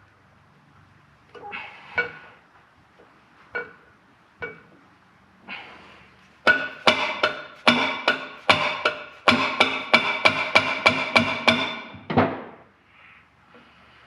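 Metal hammer striking a socket set on a valve spring retainer of a Ford 4.0 V6 cylinder head, to shock loose stuck valve keepers. A few scattered knocks come first. From about halfway in comes a fast run of ringing metallic blows, about two or three a second, for some six seconds.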